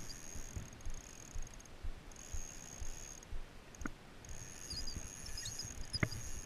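Outdoor riverside ambience on a body-worn camera microphone: an uneven low rumble from wind and handling, with a sharp click about four seconds in and another near the end, a few faint high chirps just before the second click, and a thin high steady tone that comes and goes.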